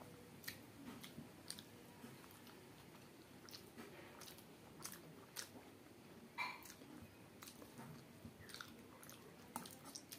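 Faint close-up chewing of a hand-fed mouthful of rice with fried fritter pieces: irregular soft mouth clicks and smacks, with one louder smack about six seconds in.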